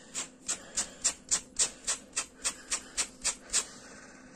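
A hand brush raked rapidly through the acrylic yarn hair of a crocheted dog toy, about a dozen short scratchy strokes at roughly three and a half a second, teasing the yarn out into fluffy fur. The strokes stop a little before the end.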